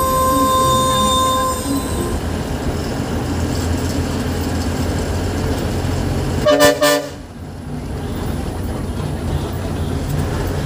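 Bus engine and road noise heard from inside the driver's cabin, with a short burst of about three quick, loud horn toots about six and a half seconds in.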